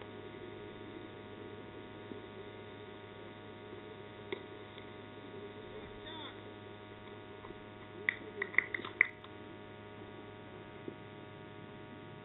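Steady low electrical hum over faint open-air background noise, with a single sharp click about four seconds in and a quick run of short high-pitched cries around eight to nine seconds in.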